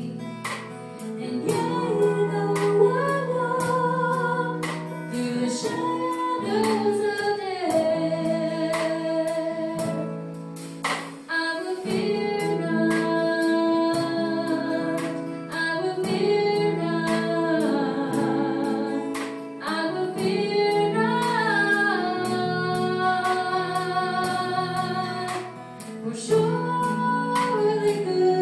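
Live band playing a song: a woman singing over electric keyboard, acoustic-electric guitar and a drum kit keeping a steady beat.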